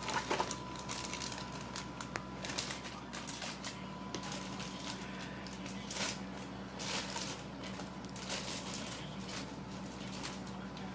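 Packaging being handled as a toy train set's pieces are worked out of the box: irregular light clicks, taps and rustles, over a steady low hum.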